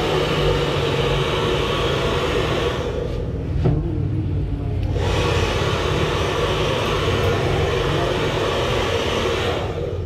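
Handheld hair dryer blowing steadily with a low hum underneath. Its rushing hiss drops away for about two seconds a few seconds in, then comes back and eases off near the end.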